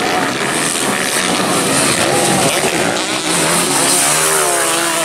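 Several dirt-bike racing engines revving hard, their pitch rising and falling as the bikes accelerate and brake through the dirt corners.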